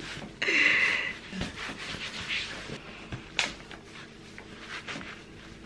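Rustling and rubbing of a sneaker's laces being pulled through the eyelets as the shoe is put on, loudest in the first second, with a sharp click about three and a half seconds in.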